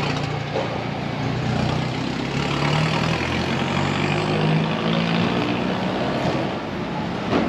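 Street traffic: a motor vehicle's engine running close by, a steady low hum over general road noise.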